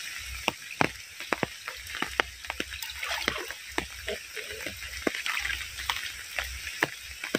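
Rain falling, with large drops striking close by in sharp, irregular taps over a steady hiss.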